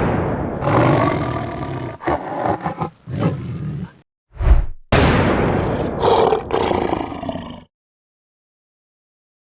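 Cartoon animal roar sound effects: a long pitched roar over a loud noisy rumble, a short low hit about four and a half seconds in, then a second long roar that cuts off suddenly.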